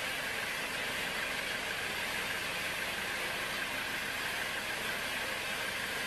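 Band sawmill running, its blade ripping lengthwise through a teak log: a steady, even noise with no breaks or changes.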